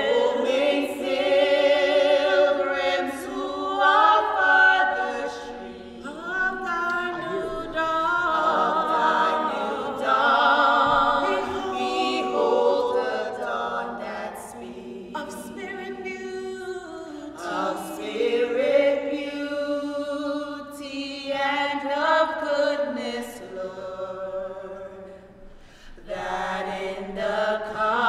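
A choir singing a slow hymn-like song without instruments, in long held phrases with vibrato; the voices dip briefly near the end before the next phrase.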